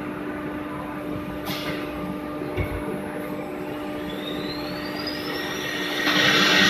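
CNC router with a steady machine hum: a short hiss and a thump, then its spindle motor spins up with a rising whine. About six seconds in, the sound jumps to a much louder rush as the bit starts into the board.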